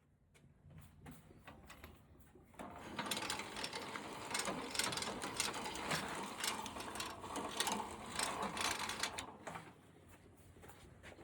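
Small motor-driven machine running with a rapid clattering, clicking mechanism. It is faint at first, louder for about seven seconds in the middle, then drops back.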